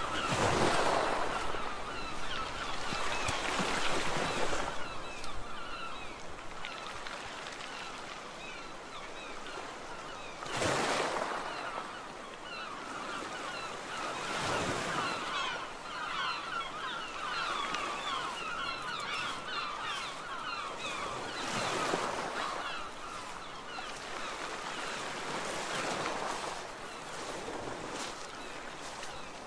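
Sea waves breaking and washing on a beach, swelling every few seconds, over a steady background of many short bird calls from a flock.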